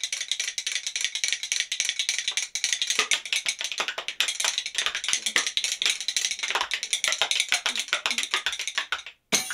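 A pair of spoons played as a percussion instrument, slapped rapidly against the body in a fast, continuous clatter of clicks. It stops abruptly about nine seconds in, and one last sharp clack follows.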